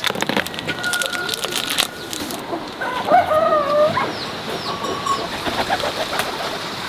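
A rooster crows once, about three seconds in, lasting about a second, with a few shorter bird calls after it. Crisp clicking and crackling handling noises come in the first couple of seconds.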